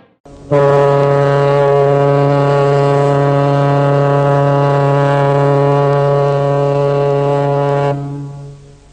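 A ship's horn sounding one long, steady blast of about seven and a half seconds, which dies away shortly before the end.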